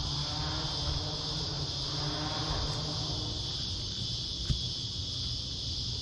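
Steady high-pitched drone of insects chirring in chorus, with a low steady hum underneath and a single sharp click about four and a half seconds in.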